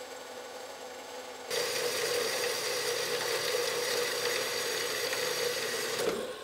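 Horizontal metal-cutting band saw cutting through a 3-inch stainless steel exhaust pipe at an angle, as one of a series of wedge (pie) cuts. The saw gets louder about a second and a half in as the blade bites into the steel, then cuts with a steady tone and a rasp, and falls away near the end.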